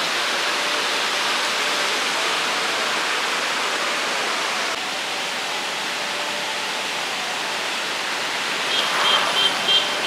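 Steady rushing of water, an even hiss with no let-up. Near the end a brief run of quick high chirps sounds over it.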